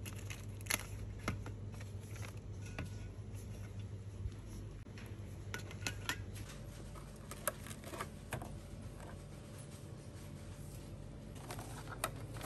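Aluminium drink cans and a plastic pastry box being picked up and set down in a plastic shopping basket: scattered clicks and knocks over a steady low hum.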